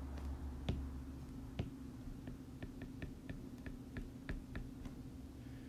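Stylus tapping and clicking on a tablet screen during handwriting: a string of faint, sharp ticks at irregular spacing, over a low steady hum.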